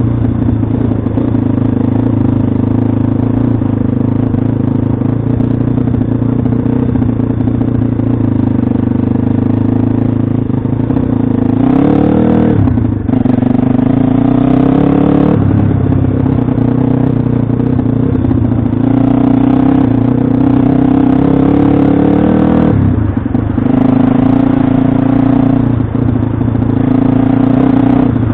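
Pit bike's single-cylinder engine running hard at high revs while being ridden, its pitch dipping and climbing back up three times as the throttle comes off and goes on again.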